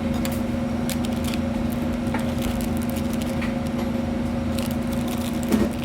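Plastic bag crinkling and rustling in short scattered crackles, with a slightly louder rustle near the end, over a steady electrical hum.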